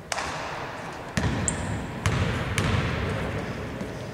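Basketball bounced on a hardwood gym floor, about four separate bounces at uneven spacing, each leaving a hall echo, as the shooter dribbles before a free throw.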